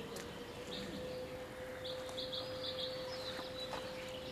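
Small birds chirping in quick runs of short, high notes, with a steady faint hum underneath.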